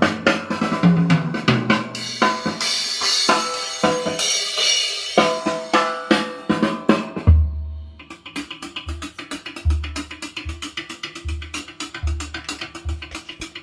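Recorded music with a drum kit playing through a Sony TA-1120 amplifier and Jensen corner loudspeakers. About halfway through the cymbal wash drops out, and deep bass notes with a quick hi-hat pattern carry on.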